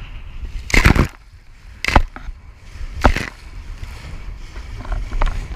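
Waves slamming against a small wooden sailboat's bow and throwing spray: three loud splashes about a second apart, then smaller slaps, over a steady rumble of wind on the microphone.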